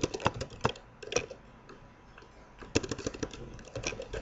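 Computer keyboard typing: a few key clicks, a pause of about a second and a half, then a quick run of keystrokes.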